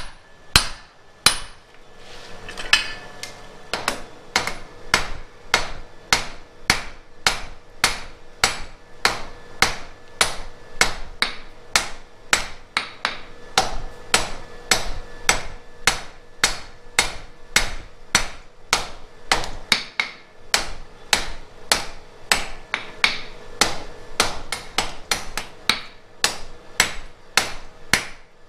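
Blacksmith's hand hammer striking a red-hot flat steel bar on an anvil in a steady rhythm of about two blows a second: the bar being forged down on both sides to form a shoulder.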